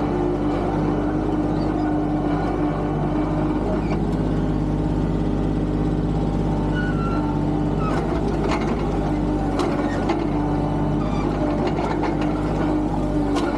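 Tractor engine running steadily, with a few short sharp knocks in the second half.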